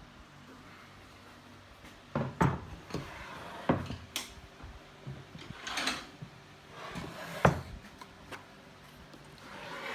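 Wooden sled parts being handled and set down on a workbench: a string of wooden knocks and short scrapes after about two quiet seconds, the loudest knock about seven seconds in.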